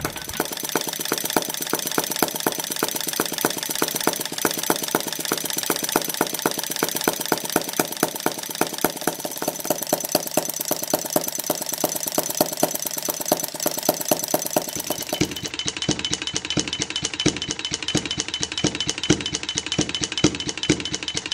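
Maier single-cylinder butane model gas engine running, a rapid, even clatter of strokes and mechanism clicks that goes on without a break. About fifteen seconds in its tone changes slightly, a little duller.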